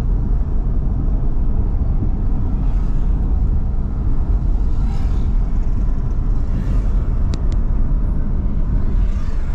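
A car driving: a steady low rumble of engine and road noise, heard from inside the car.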